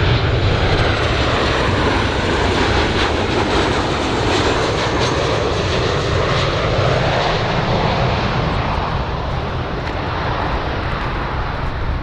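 Large airplane's engines running loud: a steady rush of noise with a faint high whine in the first couple of seconds, easing slightly toward the end.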